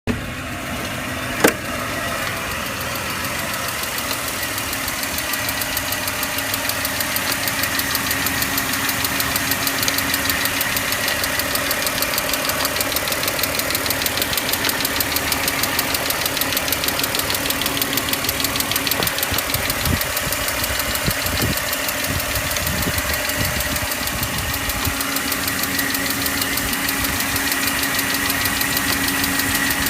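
BMW E39 530i's inline-six engine running with a fast, even ticking. There is one sharp click about a second and a half in.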